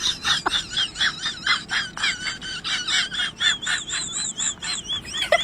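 Birds chirping: rapid, high chirps of several notes a second, with a warbling trill that comes to the fore in the second half.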